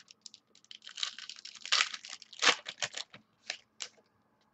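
Baseball trading cards being handled and flipped through: a quick run of sharp clicks and papery rustles, thickest in the middle, then thinning out.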